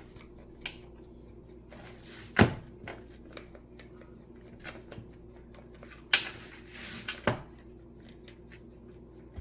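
Kitchen counter handling sounds while a steak is seasoned: scattered knocks and clunks of containers and utensils, loudest a sharp knock about two seconds in and another about seven seconds in, with a short rustling shake a little after six seconds, over a steady low hum.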